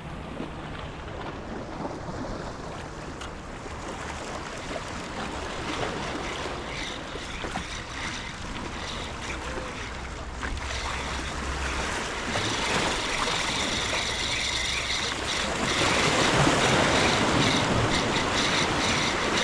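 Ocean surf washing against the shore, with wind buffeting the microphone; the wash grows louder over the last few seconds.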